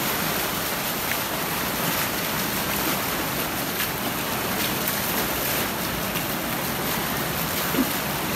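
Fast muddy floodwater rushing steadily down a paved street, a flash-flood torrent from heavy rain. One brief low sound stands out near the end.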